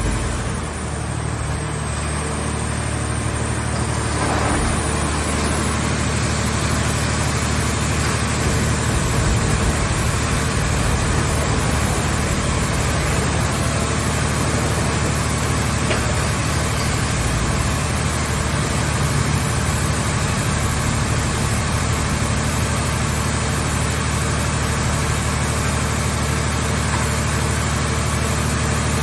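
Engine of a portable car shell baler running steadily, with a low hum under a broad mechanical noise. It is a little quieter for the first few seconds, then holds a steady level.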